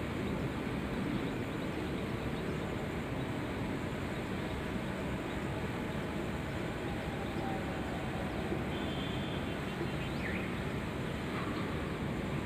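Steady outdoor background noise, mostly a low rumble, with a single faint bird chirp about ten seconds in.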